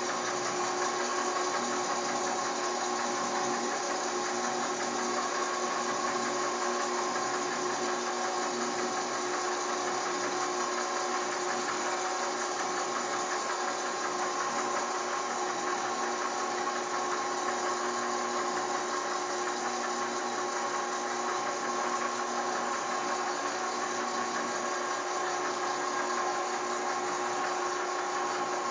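Emco Super 11 CD lathe running steadily while a scissor-type knurling tool rolls a knurled pattern into the spinning metal part, a constant machine whine with a few held tones.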